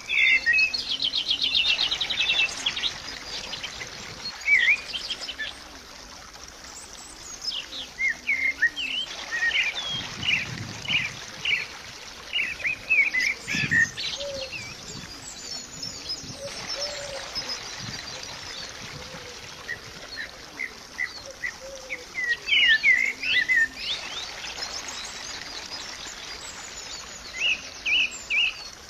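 Small birds chirping: many short, quick calls with a rapid trill near the start and a busy cluster of calls near the end, over a faint steady hiss.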